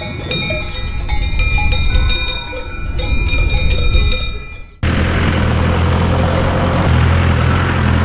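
Many livestock bells clanking and ringing irregularly. About five seconds in, a sudden cut to the steady low running of a 4x4 off-road vehicle's engine.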